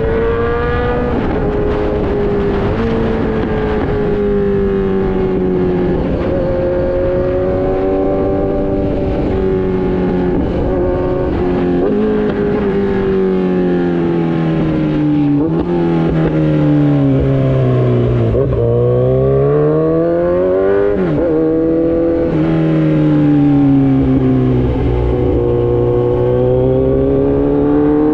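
Kawasaki Z900's inline-four running through an Austin Racing full exhaust, its note rising and falling with the throttle. About two-thirds through it sinks slowly to a low point, climbs again, then steps down abruptly as a gear changes.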